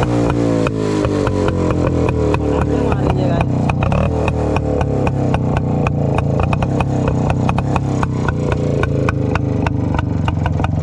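Rajdoot 175's two-stroke single-cylinder engine running with the dB killer pulled out of its silencer, giving a loud open exhaust note. The revs fall away in the first second, then settle into a steady idle of evenly spaced exhaust pulses.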